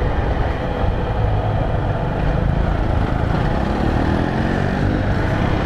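Motorcycle engine running under a steady rush of traffic and wind noise on a helmet-mounted camera's microphone, with an engine note rising about four seconds in.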